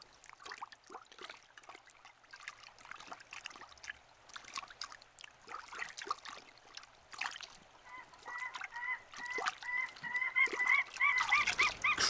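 Faint dabbling and splashing in shallow water as a raccoon feels about with its paws, then, from about two-thirds of the way through, cranes honking in a quick repeated series, three or four calls a second, getting louder toward the end.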